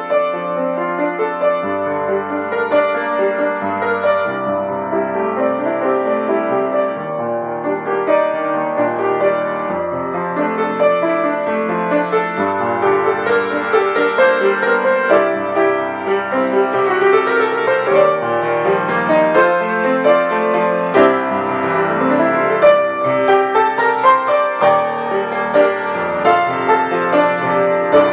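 Piano improvisation played with both hands: held chords under running melodic notes, getting busier and louder through the second half.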